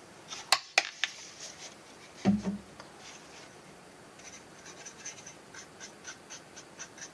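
Two sharp clicks as the plastic flip-top cap of an alcohol bottle is snapped shut, then a dull knock as the bottle is set down on the bench. After that comes light, quick ticking and scraping, about four ticks a second, from a fine paintbrush stirring alcohol-thinned ink in a small cup.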